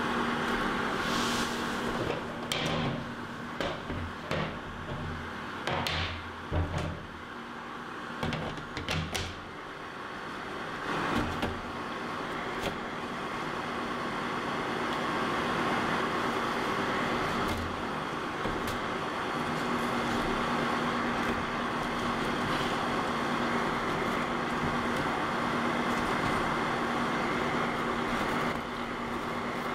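WMF Küchenminis food dehydrator's fan running with a steady hum, while plastic drying trays are stacked and apple slices laid on the mesh. The handling gives light clicks and knocks through roughly the first ten seconds.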